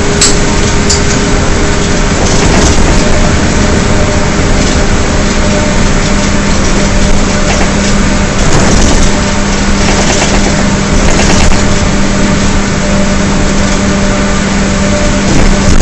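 Interior sound of a 2009 Gillig Advantage transit bus under way, its Cummins ISL diesel and Allison B400R automatic transmission giving a steady howl over a constant hiss from the tyres on the wet road.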